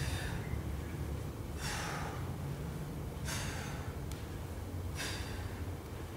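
A man's sharp, forceful breaths under exertion, four of them spaced about a second and a half apart, one with each deep squat rep, over a steady low hum.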